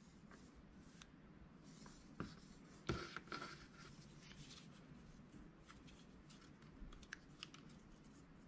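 Faint rustling and light taps of thin paper quilling strips being handled and pressed together end to end, with a few slightly louder taps around two to three seconds in.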